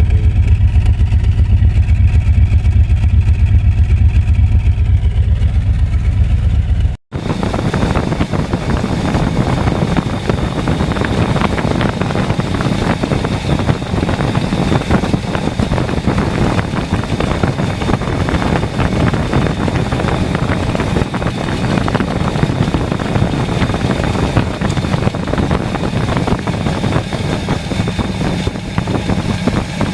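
Mercedes 450SL's 4.5-litre V8 idling with an even low rumble for about seven seconds, then cutting off abruptly. It gives way to a different steady, hissy mechanical running noise with a thin high whine.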